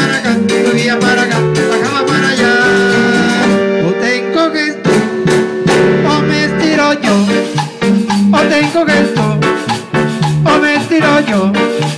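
Instrumental break of an upbeat Latin dance song: a band plays a melody over a steady beat, with no singing.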